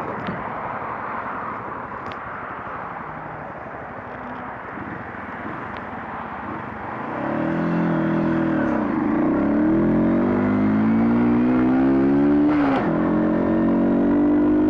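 A 2007 Honda CBR125's single-cylinder four-stroke engine, under a steady rushing noise at first. About halfway it gets louder with revs climbing as the bike pulls away. Near the end the revs drop sharply at a gear change, then climb again.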